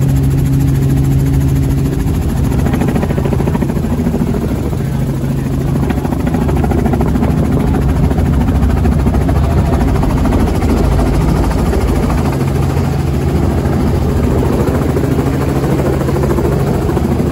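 Helicopter engine and rotor running loud and steady, heard from inside the cabin as it descends to land on a grass field. The low hum in the sound dips for a while in the middle and returns near the end.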